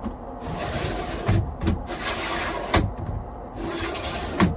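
A sunroof's pleated blind and mesh flyscreen slid by hand along their tracks: three rustling slides, each ending in a sharp click as it stops against the frame.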